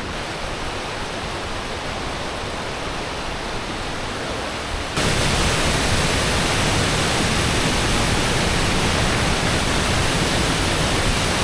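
Steady rushing roar of falling water at Iguazu Falls. It jumps suddenly louder and brighter about five seconds in, then holds steady.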